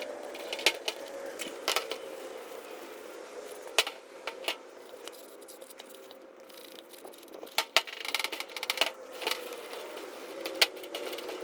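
Handling of a plastic motorcycle airbox while it is treated with plastic restorer: scattered sharp clicks and taps, with a stretch of rubbing or wiping a little past the middle, over a steady faint hum.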